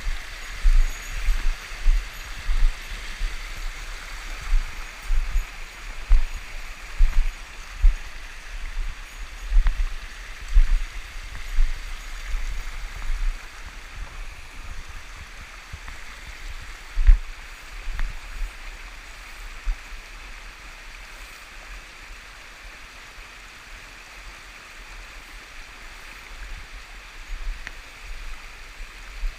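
Mountain stream rushing steadily over rocks, with irregular low thumps and bumps that come often at first and die away about two-thirds of the way through.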